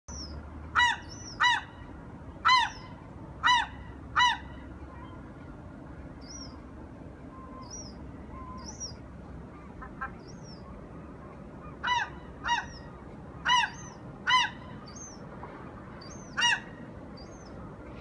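Gulls calling: short, loud, arched calls come in two bouts, five in the first four seconds and five more in the second half, with faint, thin, high-pitched peeps between them.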